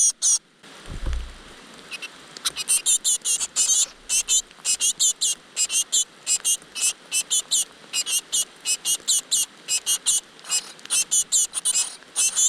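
Great tit nestlings begging: rapid high-pitched chirps, several a second, which stop briefly near the start and start again about two seconds in. A low thump sounds about a second in.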